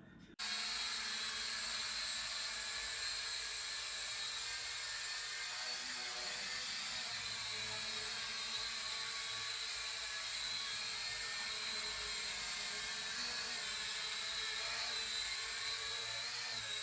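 Toy quadcopter drone's small motors and propellers whining steadily in flight, a high-pitched buzz with a slight wavering in pitch; it cuts in suddenly about half a second in.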